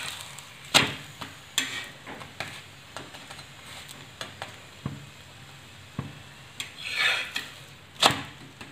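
A spatula knocking and scraping on a hot tawa as it presses and turns an aloo paratha frying in ghee: about six sharp taps spread out, with a longer scrape about seven seconds in, over a faint sizzle.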